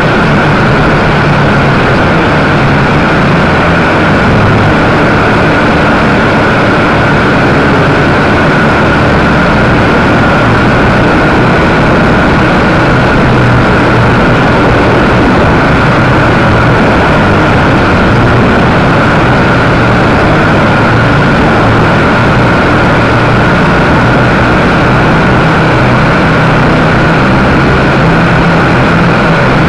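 WLtoys V222 quadcopter's four small electric motors and propellers running in flight, heard loud and close from the onboard camera mounted on the quad: a steady whine over a dense rushing noise.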